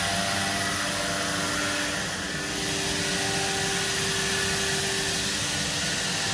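Steady rushing drone of air-moving shop machinery, with several steady hum tones under the hiss and a brief slight dip about two seconds in.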